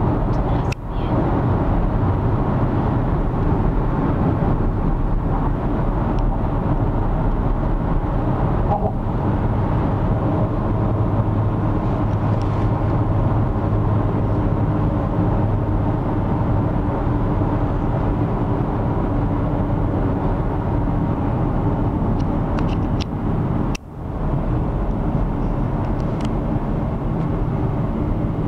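Steady engine and tyre drone of a vehicle driving at motorway speed, heard from inside the cabin. It dips briefly twice: once about a second in and once near the end.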